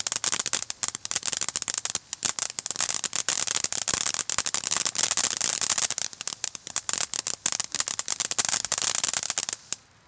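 Noisy Niagara firework fountain crackling: a dense, rapid rattle of small pops. It cuts off near the end as the fountain burns out.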